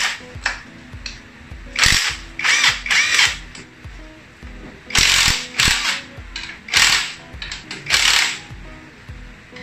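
Cordless impact wrench firing in about five or six short bursts, each about half a second, while loosening the engine-support bolts on a Yamaha Mio scooter.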